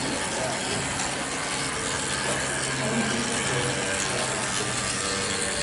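Model trains running on a model railway layout: a steady mechanical clatter and whir with a low motor hum, and a faint murmur of voices behind it.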